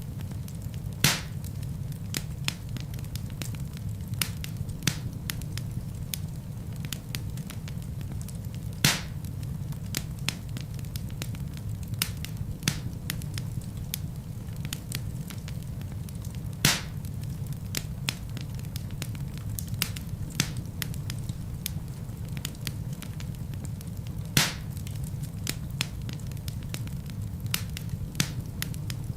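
Wood fire burning in a fireplace: a steady low rumble of flames under frequent small crackles, with four louder sharp pops from the burning logs spread evenly through the stretch.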